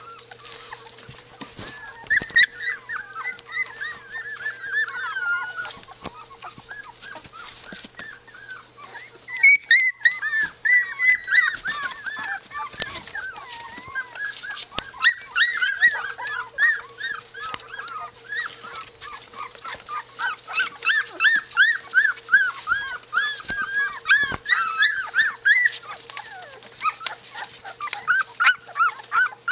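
Three-week-old Australian Shepherd puppies whining and squeaking in many short, rising-and-falling cries, coming in runs that are busiest from about ten seconds in and again near the end, over a faint steady hum.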